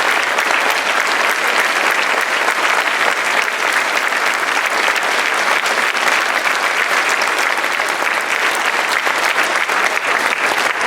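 Large audience of students and staff applauding steadily, a sustained ovation for veterans standing to be recognized.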